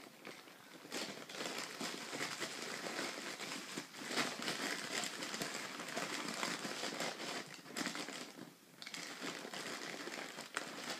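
Plastic bags and packaging crinkling and rustling as hands pack items into and dig through a medical trauma bag. The crackling runs almost without pause, easing briefly about eight seconds in.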